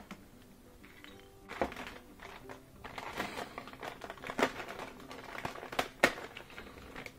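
Clear plastic bag holding a dishwasher power cord being handled and opened, crinkling and rustling, with a few sharp clicks and taps along the way.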